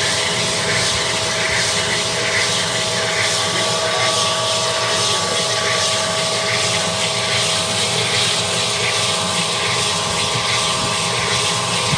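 Manual cylinder honing machine running steadily, its motor humming while the honing head's abrasive stones work inside the cylinder bore.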